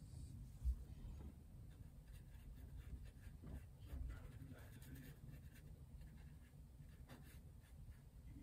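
Faint, scratchy strokes of a small paintbrush working paint onto a canvas panel, with one low thump about a second in.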